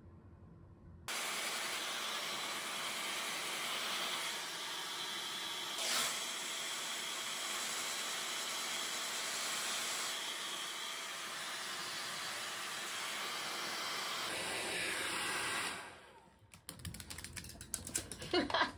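Handheld hair dryer switched on about a second in and blowing steadily to dry a wet dog's fur. It dies away around 16 seconds, followed by a few light clicks near the end.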